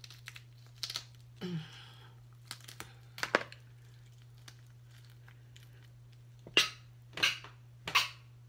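Cooked lobster tail shell cracking and crunching as it is broken open by hand to pull the meat out. A few scattered cracks come in the first few seconds, then a quiet stretch, then three loud sharp cracks a little under a second apart near the end.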